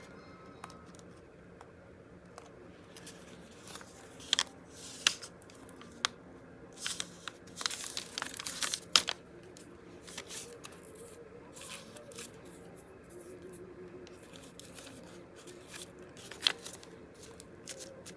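Card journal pages and paper being handled on a sheet of brown paper: scattered rustling, crinkling and scraping, busiest about seven to nine seconds in.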